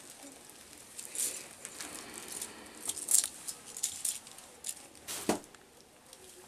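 Scattered light rustling and clinking of small objects being handled, with one sharper rustle about five seconds in.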